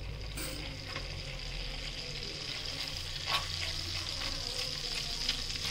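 Curry leaves sizzling and crackling in hot melted butter in a nonstick kadhai, stirred with a silicone spatula. A steady hiss is full of small pops and grows a little louder, with one sharper crack about three seconds in.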